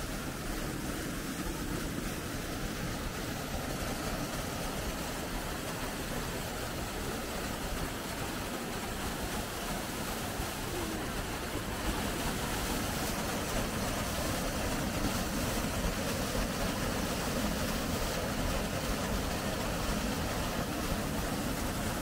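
Steady rush of running water from a shallow stream and a narrow waterfall, getting a little louder about halfway through.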